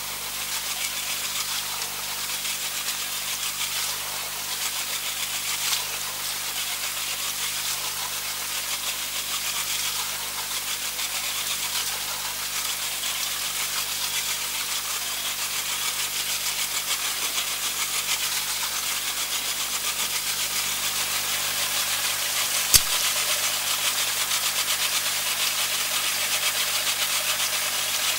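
The inflatable lifeboat's outboard engine running steadily at low speed, with a constant hiss over it. There is one sharp click about 23 seconds in.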